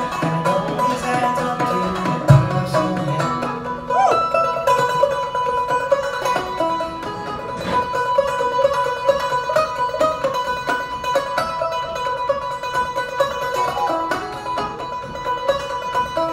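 Banjo played solo in a fast run of picked notes, an instrumental passage with no singing. There is one low thump about two seconds in.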